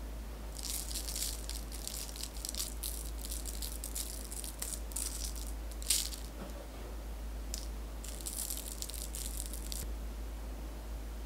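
Coconut powder being sifted over iced cake cubes: a dry, hissing rattle in repeated shaking bursts, with a sharper tap about six seconds in and a short pause after it.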